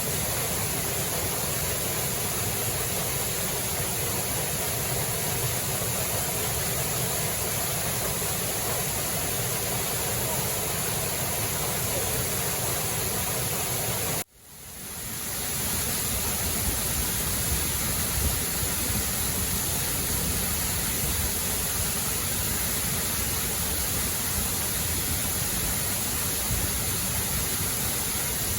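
Steady rush of a waterfall, water pouring and splashing. About halfway through it cuts out abruptly for a moment, then fades back up to the same steady level.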